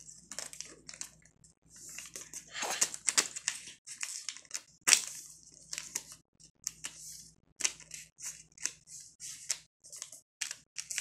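Sheet of lined notebook paper rustling and sliding under the hands as it is folded and creased, in short irregular brushing sounds, busiest around two to three seconds in, with one sharp crease-like stroke about five seconds in.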